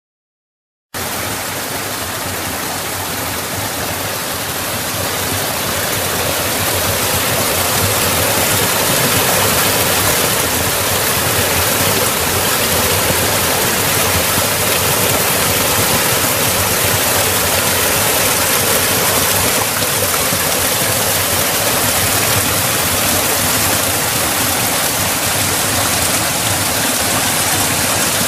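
Water pouring down a small cascade through a narrow granite rock cleft, a loud steady rush that cuts in suddenly about a second in.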